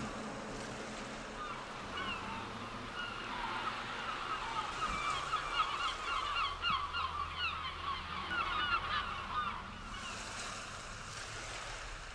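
A flock of birds calling: many short, overlapping calls that start about two seconds in, thicken in the middle and die away near the end, over a steady background hiss.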